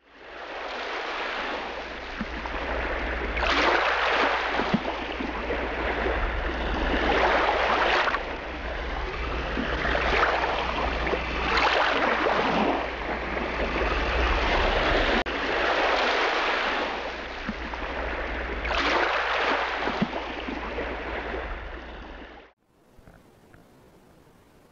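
Sea water washing in surges every few seconds over a steady deep rumble, like waves breaking. It cuts off suddenly near the end, leaving faint hiss.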